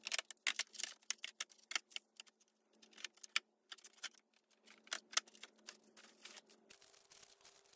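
Irregular light clicks and rattles of plastic shelving and a cord being handled by gloved hands as a light fixture's cable is routed along the shelf.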